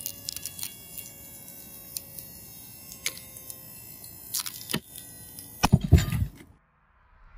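Scattered light metal clicks and clinks of a steel screwgate carabiner against a climbing bolt hanger as it is worked loose and unclipped after a pull test. A few heavier knocks and handling thumps come about six seconds in, then the sound cuts off suddenly.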